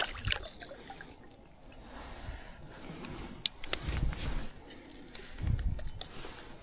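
Handling noise from a freshly landed fish and its lure: scattered small clicks, wet squelches and two low, dull thumps about four and five and a half seconds in.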